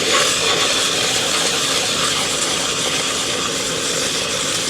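A Carter dual-action fuel pump housing section rubbed back and forth on sandpaper to lap its gasket surface flat: a steady, continuous sanding hiss. The surface is not yet touching the paper all over, so it is not yet flat.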